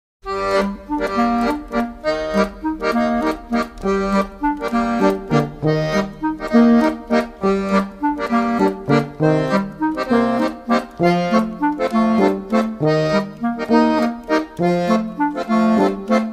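Instrumental background music led by an accordion, playing a tune of short, rhythmic chord notes at an even beat.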